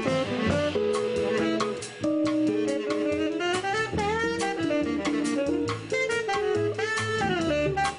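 Small jazz combo playing live: a saxophone carries a gliding melody over plucked upright bass, archtop guitar and a drum kit with cymbals.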